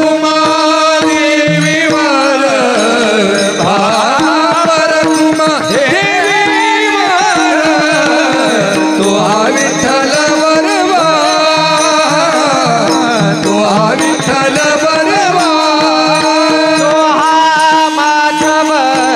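Varkari kirtan singing: a kirtankar sings long, sliding, drawn-out vowels over a steady held drone, with pakhawaj drum strokes keeping time underneath.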